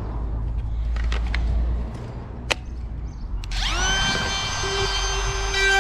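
DeWalt cordless palm router switched on about three and a half seconds in: its motor spins up in a quick rising whine and settles to a steady high whine, which gets louder near the end. Before that there are a few sharp clicks of the tool being handled over a low rumble.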